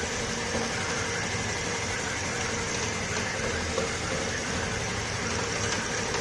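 A machine running steadily in a workshop, a continuous motor hum with a hiss over it.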